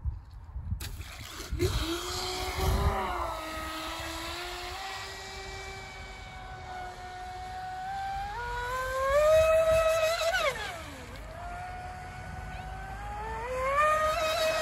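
Electric RC speedboat with an FMS Predator 2845 2750kv brushless outrunner motor on 5S, making a high whine at speed. The pitch steps up with throttle, swoops down sharply about ten seconds in, then climbs again near the end. A few low thumps come in the first seconds.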